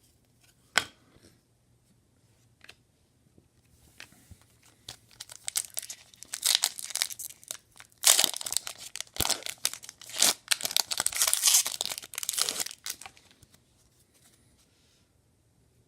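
A trading card pack wrapper being torn open and crinkled, a run of crackling, tearing noises lasting several seconds, after a single sharp click about a second in.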